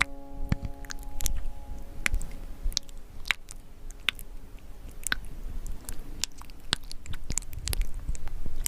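Thick wet paint being stirred and mixed, with a steady scatter of short sticky clicks and squelches.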